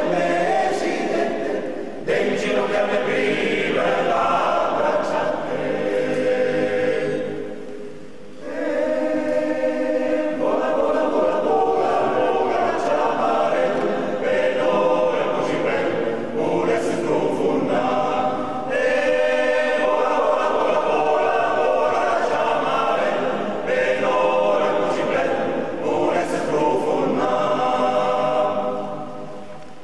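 Background music: a choir singing a song in long phrases, with a short break between phrases about eight seconds in.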